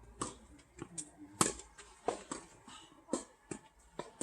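Tennis ball being struck by rackets and bouncing on the court during a rally: a series of sharp hits, the loudest about a second and a half in.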